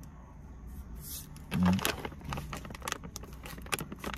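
A man chewing bite-sized frosted pastries, with a short closed-mouth hum about one and a half seconds in, followed by quick crackly clicks of eating.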